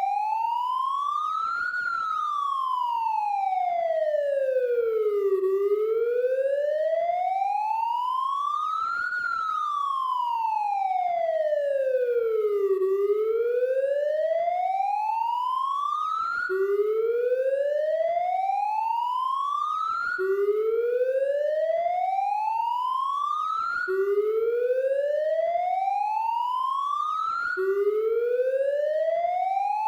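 Police siren sound effect: a slow wail gliding up and down, about seven seconds per rise and fall, twice. About halfway through it changes pattern to a rising sweep that snaps back down to the low note every three to four seconds.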